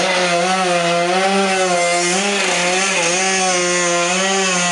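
Small two-stroke scooter engine held at high revs for a burnout, a loud steady high-pitched drone that wavers slightly in pitch.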